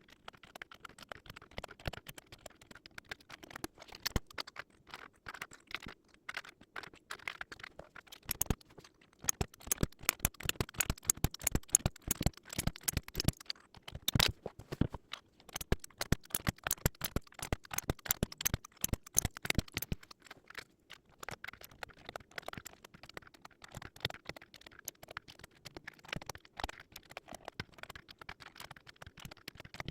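Rapid, irregular small clicks and snaps of hard plastic, busiest and loudest in the middle stretch, from mechanical keyboard parts being handled and pressed into place during assembly.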